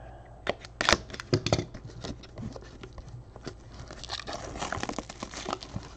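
Plastic shrink-wrap on a trading card box being slit with a box cutter and pulled off: a few sharp clicks and taps in the first second and a half, then a longer stretch of crinkling plastic.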